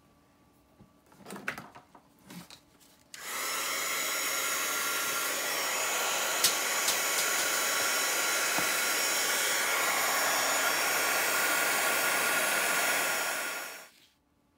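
Embossing heat tool blowing hot air, switched on about three seconds in and running steadily for about ten seconds before cutting off, melting red embossing powder on a stamped heart. A few light handling taps come before it starts.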